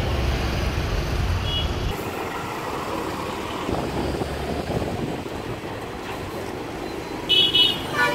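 Busy street traffic with buses and other motor vehicles running. A heavy engine rumble with a short electronic beep about a second and a half in changes abruptly, about two seconds in, to a lighter traffic hum. Vehicle horns toot in quick repeated bursts near the end.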